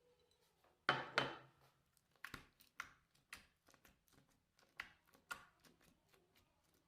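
Slime being squeezed and poked: a series of short sticky pops and crackles. The two loudest come close together about a second in, then smaller ones are scattered through the rest.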